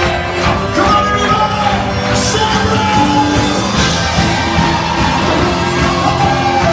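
Live worship band music played loud in a large hall, with voices singing over the band.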